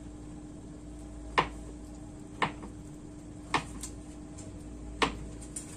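Knife slicing tempeh on a plastic cutting board: four sharp taps about a second apart as the blade meets the board, over a steady low hum.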